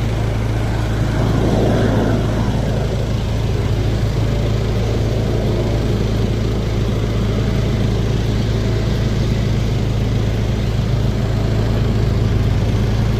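Steady low engine drone, with a brief swell in the sound about two seconds in.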